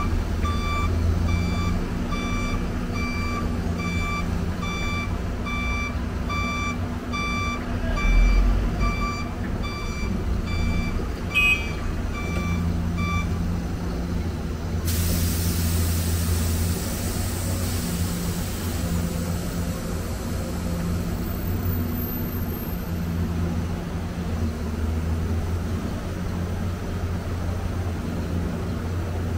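Heavy diesel machinery running at a steady, pulsing drone while a backup alarm beeps about once a second for the first half, with a heavy thump about eight seconds in. About halfway through the beeping stops and a long hiss of air starts suddenly, then fades over several seconds.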